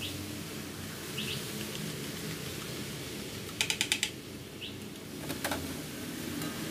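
Sugar syrup bubbling at the boil in an aluminium pot on a gas burner, a steady hiss. A few short bird chirps come through it, and a quick run of about five sharp clicks sounds about halfway, followed by a couple of knocks.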